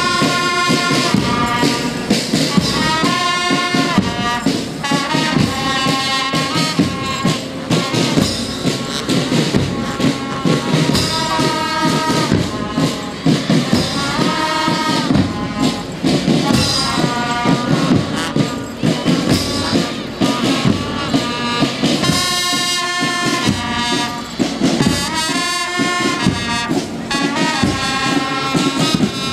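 Marching band playing: brass horns carry a melody over a steady beat of snare and bass drums.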